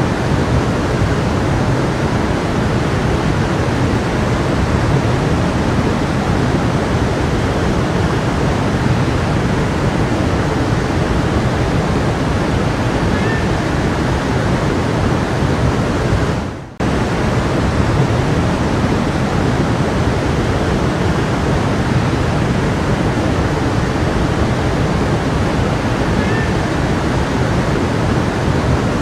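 Stream water rushing steadily. About two-thirds of the way through the sound briefly fades out and cuts straight back in.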